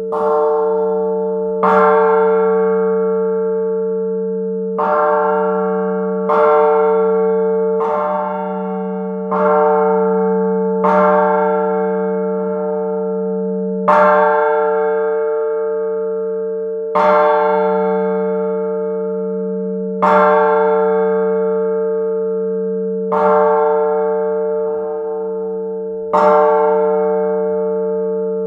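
La Piagnona, the historic bronze church bell of San Marco in Florence, tolled again and again: a stroke every second and a half to three seconds, each ringing on into the next over a steady deep hum.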